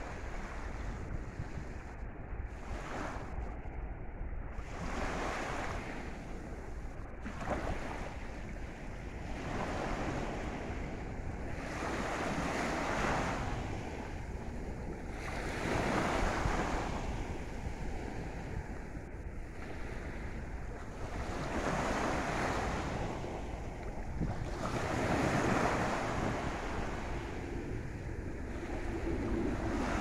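Small ocean waves washing in at the shore, a rushing swell about every three seconds, with wind rumbling on the microphone underneath.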